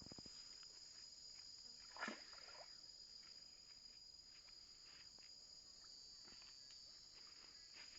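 Faint, steady, high-pitched insect chorus of crickets, with a brief louder rustle about two seconds in.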